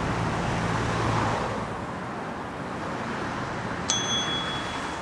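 Steady outdoor traffic noise with a vehicle's low hum in the first second or so. About four seconds in, a single bright metallic ding rings on briefly.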